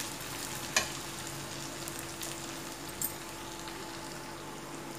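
Diced potatoes and onion sizzling steadily in hot mustard oil in a steel kadai while being stir-fried, with a metal spatula clicking against the pan twice.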